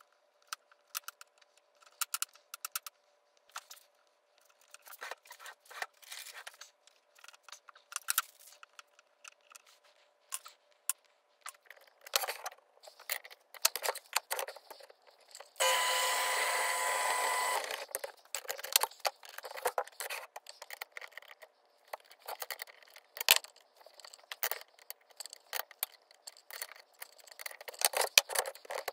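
Workshop handling noises: scattered clicks, taps and metal scrapes as a wooden blank and lathe chuck parts are handled, with a steady machine run of about two seconds a little past the middle.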